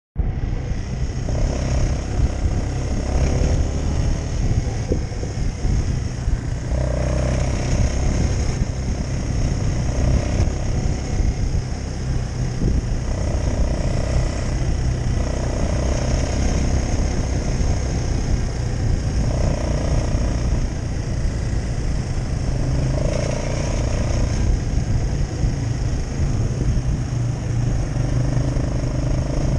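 Quad bike (ATV) engine running while riding along a dirt track, its note swelling and easing every few seconds with the throttle.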